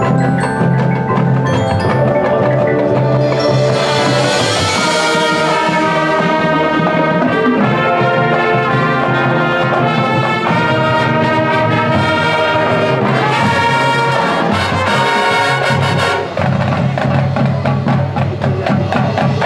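Marching band playing, brass with front-ensemble mallet percussion such as marimba and xylophone.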